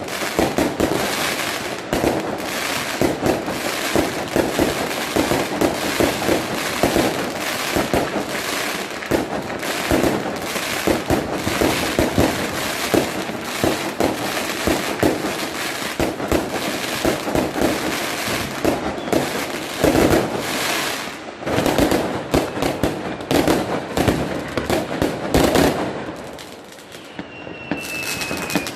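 New Year's fireworks and firecrackers going off in a dense, continuous barrage of bangs and crackles. Near the end the barrage thins and a thin whistle, falling slightly in pitch, sounds briefly.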